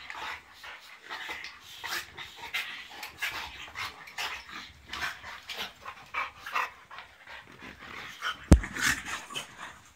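A French bulldog and a boxer play-fighting: quick, rapid panting and huffing breaths from the dogs, with one sharp thump about eight and a half seconds in.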